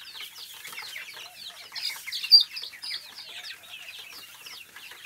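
A flock of young chickens and small chicks peeping continuously: many short, high, falling chirps overlapping, with one louder call a little past two seconds in.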